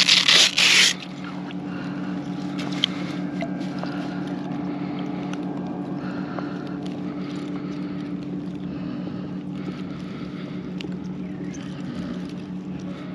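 Motorboat engine running at a steady pitch, a low drone that holds throughout, with a loud rushing burst of noise in the first second.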